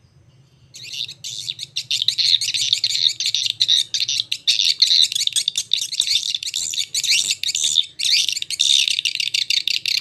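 Recorded swiftlet lure call played through a pair of horn tweeters: dense, shrill, rapid twittering and chirping of young edible-nest swiftlets, the chasing and mating calls used to draw swiftlets into a nesting house. It starts about a second in and dips briefly near the eight-second mark.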